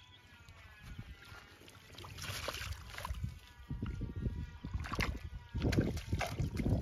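Wet fishing net handled in shallow pond water at the bank: sloshing and scattered knocks, with low rumbling that grows louder in the second half. A bleating animal call sounds faintly in the first half.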